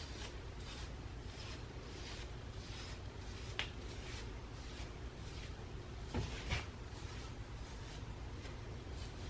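Faint, repeated rustling and rubbing of cloth as a hair wrap is undone, with a sharp click about three and a half seconds in and a soft knock around six seconds.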